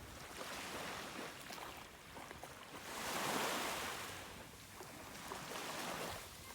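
Small sea waves washing onto a beach, with one louder wash about three seconds in.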